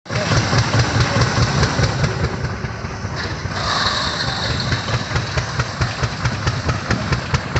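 Rumley OilPull tractor engine running under belt load, driving a rock grinder, with an even exhaust beat about three times a second. A steady hiss joins about three and a half seconds in.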